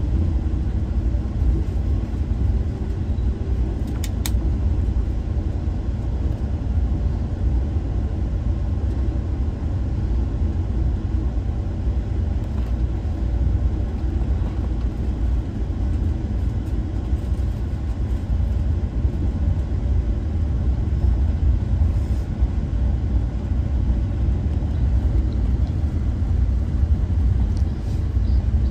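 Amtrak passenger train running, a steady low rumble with a few faint clicks.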